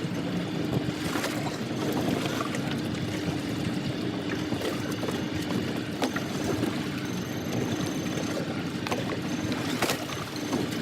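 Fishing boat's engine running steadily with a constant hum, over water noise, with a few light knocks near the end.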